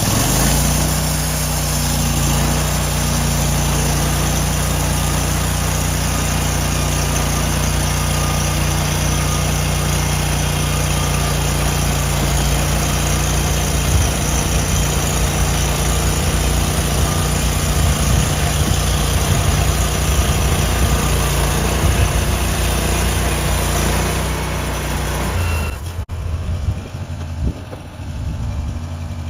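Engine running steadily at a high, even speed. Its pitch rises up to speed in the first second, then holds until it falls away near the end.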